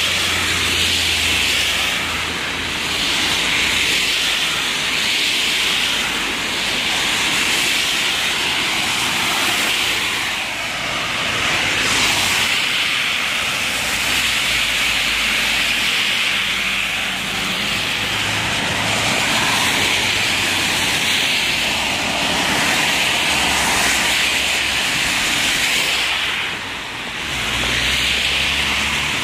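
Rainy city street ambience: a steady hiss of rain and tyres on the wet road, swelling and easing every few seconds over a low traffic rumble.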